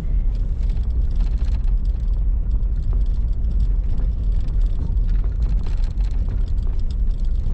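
Steady low rumble of a vehicle being driven, engine and road noise, with scattered light knocks.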